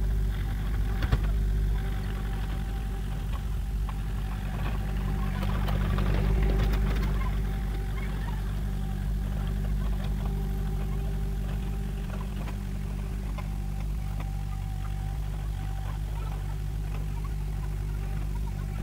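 Diesel engine of an old, high-hour mini excavator running steadily as it works, swelling louder around six seconds in. A single sharp knock about a second in.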